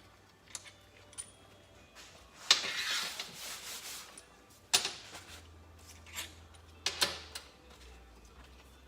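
Metal engine parts and hand tools being handled: light clinks, a rattling scrape of metal on metal about two and a half seconds in, and two sharp metallic clicks near five and seven seconds.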